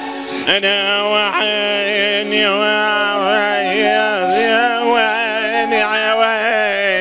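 A man singing a wavering, heavily ornamented melody into a microphone over steady held notes of backing music.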